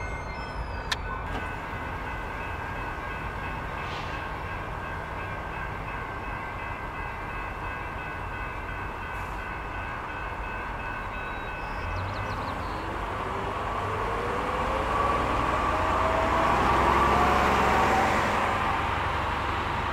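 BNSF freight train's cars rolling slowly over the rails, a steady rumble with faint thin ringing tones, growing louder with rising squealing tones in the second half.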